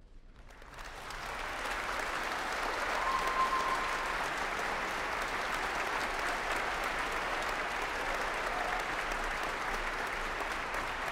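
Audience applause breaking out just after the music ends, swelling over the first second or two and then holding steady. A brief high tone cuts through about three seconds in.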